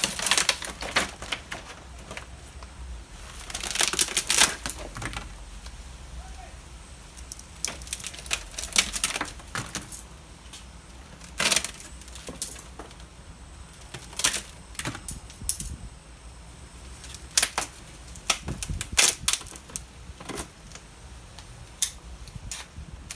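Irregular clicks, cracks and snaps of a flatscreen LED TV's plastic casing and panel layers being pried and pulled apart by hand, some in quick clusters.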